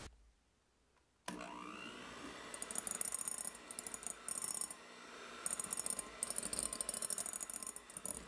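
Electric hand mixer switched on about a second in, its motor whine rising as it spins up, then running steadily while its wire beaters click and scrape in repeated bursts against the glass bowl as egg yolks are beaten into stiff meringue.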